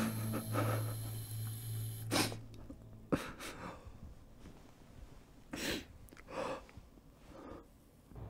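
A man crying: a string of sharp sniffs and shaky breaths, about six of them, the strongest two or three seconds in, over a low steady hum that stops about three seconds in.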